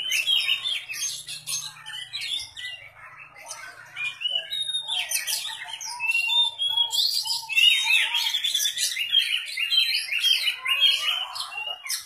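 Caged oriental magpie-robin (kacer) singing fast runs of repeated chirping notes, practising the borrowed songs of other birds (masteran). A short string of lower whistled notes comes in near the middle.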